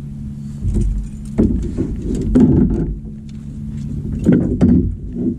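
Boat motor running steadily while trolling, a low hum under a rumble, with several heavy thumps and knocks across it.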